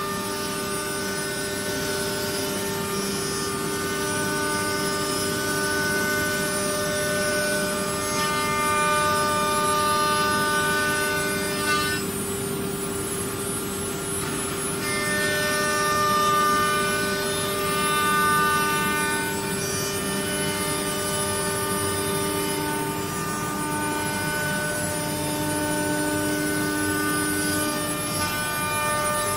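CNC router running: a steady electric whine made of several tones, some of which drop out and come back every few seconds, with a noisy hiss over it.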